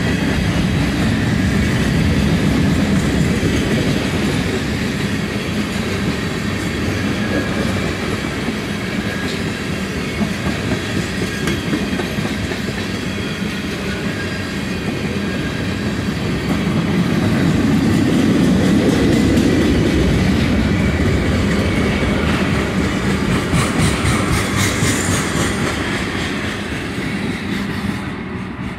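Norfolk Southern freight train's covered hoppers and tank cars rolling past: a steady rumble of steel wheels on rail with clickety-clack over the joints. The sound falls away near the end as the last car goes by.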